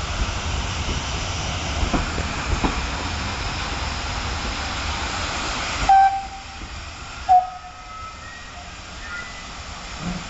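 Steam train running with a steady rumble and hiss of steam, and a few sharp clicks from the wheels. About six seconds in the rumble drops away and a steam locomotive whistle gives two short, sharp toots about a second and a half apart.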